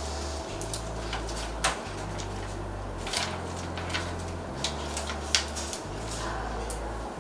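Sheets of transfer paper being flexed and the backing peeled away from the printed sheet, giving scattered crinkles and sharp paper snaps over a steady low hum.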